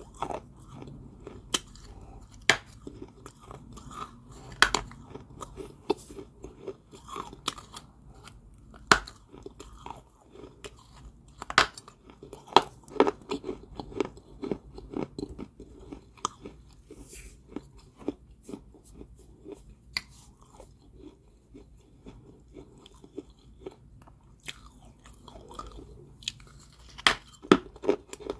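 Someone biting and chewing dry, crunchy balls of Georgia White kaolin clay, with sharp irregular crunches. The crunches thin out in the middle and come thick again near the end.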